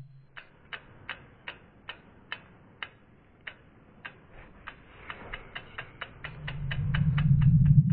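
Sound effect for a logo animation: a run of sharp clock-like ticks, a little under three a second, pausing briefly and then quickening to about four or five a second. A low hum swells up under them from about six seconds in and is loudest near the end.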